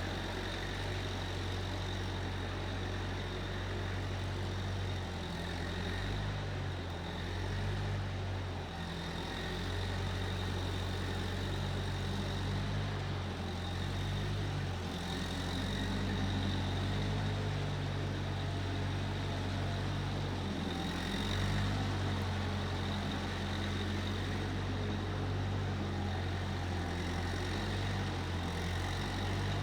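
Case 1530 Uni-Loader skid steer engine running steadily, its low hum shifting slightly in pitch now and then, with a thin steady high whine above it.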